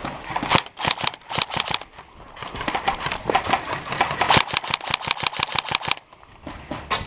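Airsoft guns firing during a close-quarters game: rapid strings of sharp shots, several a second, densest through the middle and thinning out near the end.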